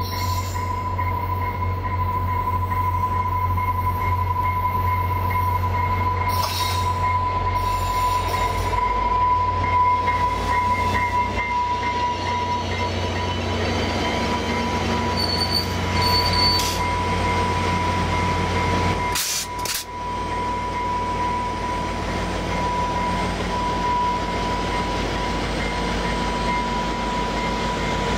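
VIA Rail F40PH-series diesel locomotive and its passenger coaches pulling into a station and slowing to a stop. The diesel engine gives a low rumble under a steady high-pitched squeal from the wheels and brakes, with a brief break about two-thirds of the way through.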